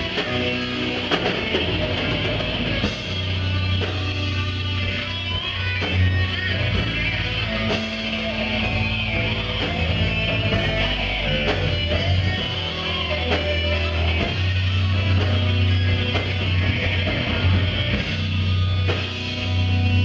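Live rock band playing: electric guitar, bass guitar and drum kit, with a steady low bass line under regular drum hits.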